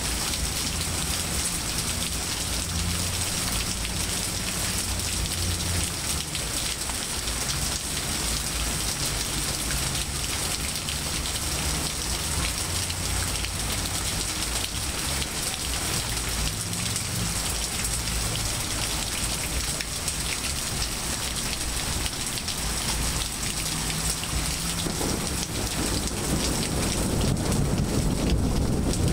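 Steady rain falling on leaves, grass and pavement, an even dense hiss, with a low rumble underneath that grows stronger near the end.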